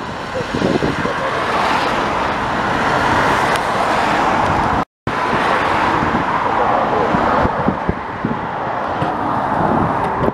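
Steady jet roar of an airliner on the Heathrow approach, mixed with gusty wind buffeting the microphone in storm-force winds; the sound cuts out for a split second about halfway through.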